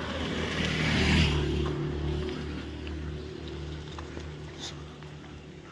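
A motor vehicle passing close by: its engine hum and road noise swell to their loudest about a second in, then slowly fade, over a steady low hum.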